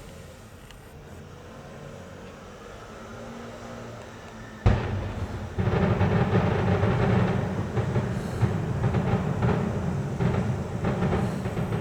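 Fireworks: a few seconds of low background, then a sharp bang a little before halfway, followed by a dense, continuous barrage of booms and crackles.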